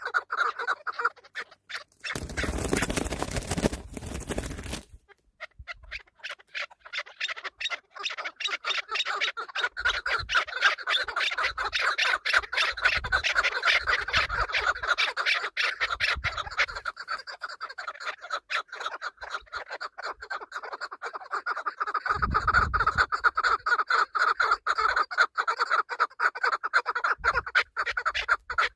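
Chukar partridge calling: a long run of rapid, clucking notes repeated many times a second. About two seconds in, a burst of noise covers the calls for about three seconds.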